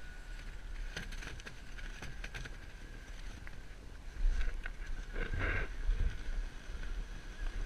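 Snow tube scraping over packed snow as the rider shifts onto it and pushes off, louder rough scraping bursts about four to six seconds in, over a low wind rumble on the action camera's microphone and a faint steady high whine.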